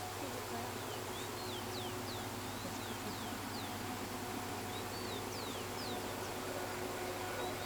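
Small birds giving repeated short, high chirps that slide downward in pitch, over a steady low hum.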